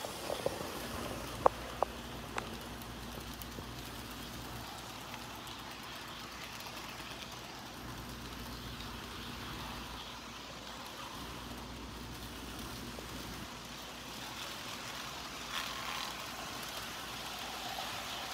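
Model trains running on the layout: a steady hum and rumble of motors and wheels on track, with a few sharp clicks in the first couple of seconds.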